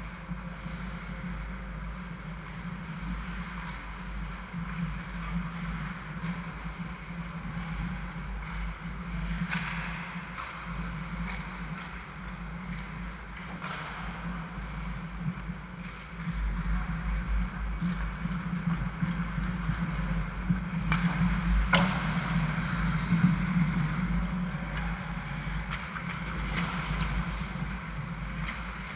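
Indoor ice hockey rink during play: a steady low rumble with a hiss of distant skating and a few sharp clacks from sticks and puck. It gets louder about halfway through as play comes back toward the goal.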